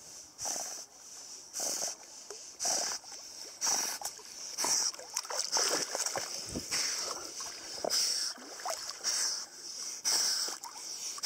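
Seawater splashing and sloshing right at the microphone as a golden retriever swims up alongside, in regular surges about once a second.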